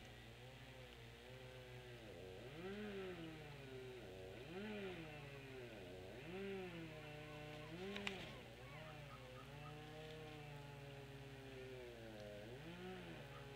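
Faint motor whose pitch swings up and back down in a regular cycle about every two seconds, over a steady low hum, with a single sharp tick about eight seconds in.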